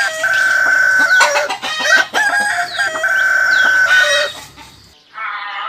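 Rooster crowing twice, each crow a long call ending in a held high note. The crowing fades out shortly before the end, where a different, quieter sound begins.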